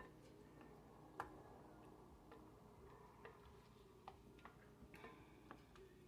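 Faint, irregular light clicks of a utensil against a mixing bowl while stirring fruit and Jell-O mixture, about one tap a second.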